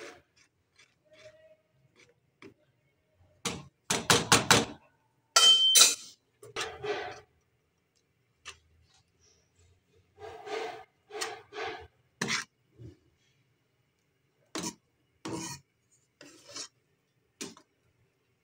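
Steel ladle scraping and knocking against a coated wok while stirring soup, in irregular strokes; the loudest, fastest run comes about four seconds in, then single strokes follow about a second apart.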